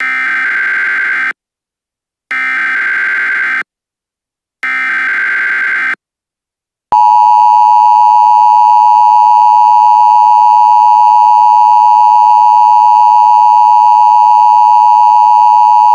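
Emergency Alert System tones for a hazardous materials warning. Three short bursts of SAME header data, each just over a second long with about a second of silence between them, are followed about seven seconds in by the loud, steady two-tone EAS attention signal.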